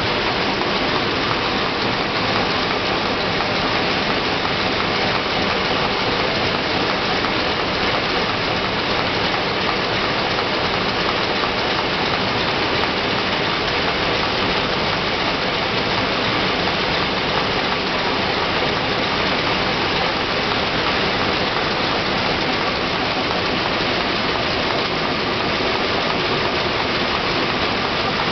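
Film packaging envelope pasting machine running with a steady, unchanging mechanical din.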